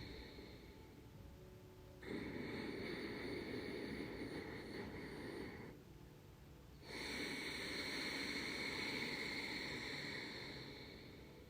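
Ujjayi pranayama breathing: slow breaths drawn through a slightly constricted throat, giving a soft hissing, ocean-like sound like a soft snore. A breath fades out at the start, then two full breaths of about four seconds each begin about two and seven seconds in, with short quiet pauses between.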